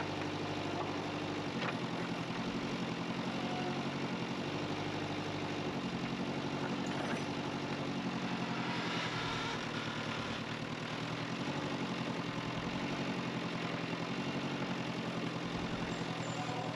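Backhoe excavator's diesel engine running, its note rising and falling every couple of seconds as the arm works.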